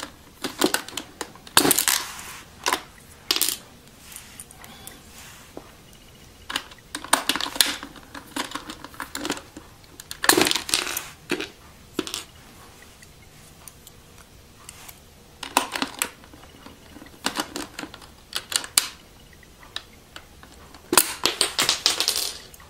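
Plastic keycaps being pried off a membrane keyboard with a key puller and set down, heard as scattered clusters of sharp clicks and clatters separated by quiet stretches.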